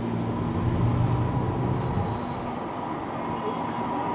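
Steady low rumble of a train approaching along the tracks, with a hum that grows stronger toward the end.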